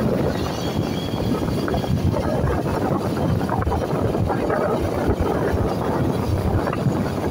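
Steady rumble and road noise of a moving vehicle, with wind buffeting the microphone.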